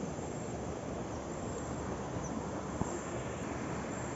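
Steady outdoor background noise, an even hiss with no distinct source, and a single faint click just under three seconds in.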